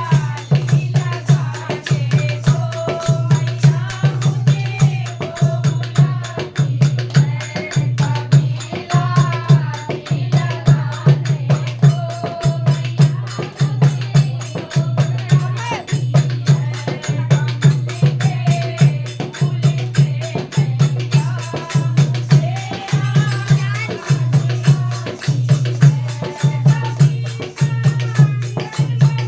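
Devotional bhajan music: a bending melody line over a steady drum beat of about two to three strokes a second, with rattling percussion.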